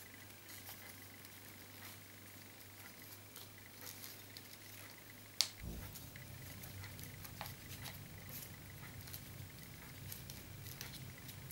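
Faint rustling and soft ticking of rolled paper tubes being bent and woven by hand, with one sharper click about five seconds in.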